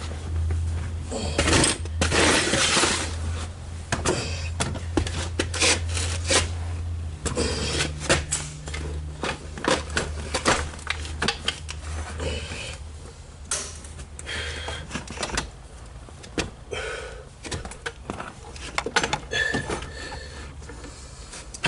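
Metal hand tools clinking, tapping and scraping irregularly against the engine as an ignition coil mounting bolt is worked loose and pulled out. A steady low hum runs underneath and stops about halfway through.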